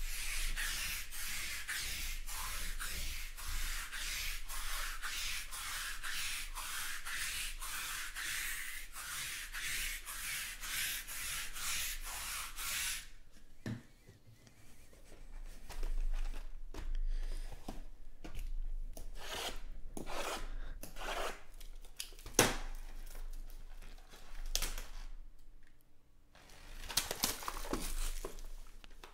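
Sticky lint roller rolled over a cloth mat: a steady peeling rasp with a regular pulse about twice a second, which stops about 13 seconds in. Then come scattered light taps and rustles, with one sharp click, and plastic shrink-wrap crinkling near the end.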